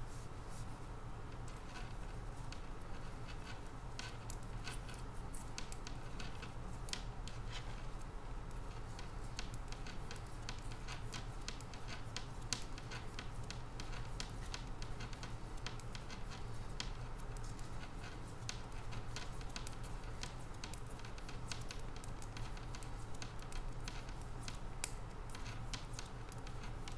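Metal knitting needles clicking and scraping against each other as a row of knit stitches is worked in wool: many small, irregular clicks.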